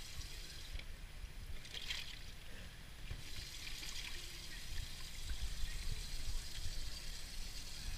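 Water splashing and trickling as bass are lifted out of a boat's livewell into a weigh bag, with a few brief scratchy splashes over a soft steady background.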